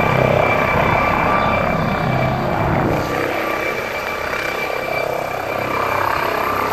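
Helicopter running with its rotor turning, a steady high whine over a low, pulsing chop, dipping slightly in loudness midway.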